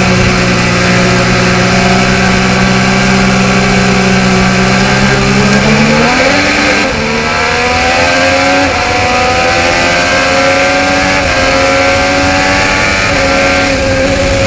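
IndyCar's twin-turbocharged 2.2-litre V6 heard from the onboard camera. It holds a steady low note at pace speed for about six seconds, then accelerates hard, the pitch climbing and stepping down with each of several upshifts, as the field goes through the restart zone.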